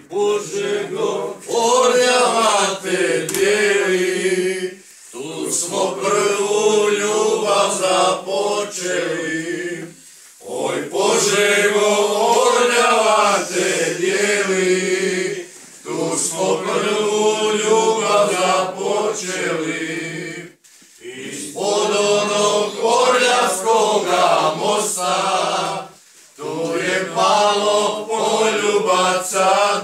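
A group of men singing a song together, unaccompanied, in phrases of about five seconds with short breaks between them.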